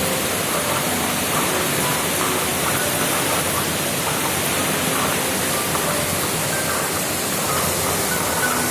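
Heavy rain in strong wind: a loud, steady, even rush with no break.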